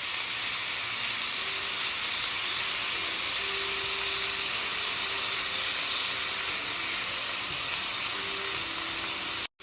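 Chicken, broccoli, onion and carrot with sauce sizzling steadily in a hot pan.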